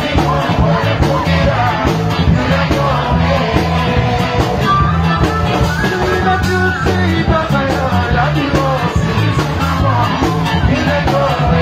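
Loud live music with singing, played through a stage PA system, over a steady repeating bass line.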